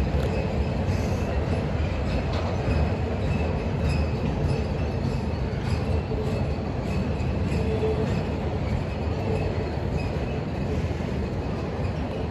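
Union Pacific freight train's loaded flatcars rolling past: a steady rumble of steel wheels on the rails, with a faint high wheel squeal coming and going.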